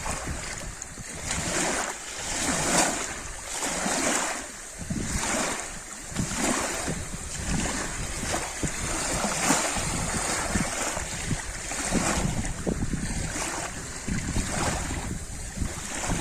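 Lake water splashing and lapping at the shore in repeated surges about once a second, with a low wind rumble on the microphone.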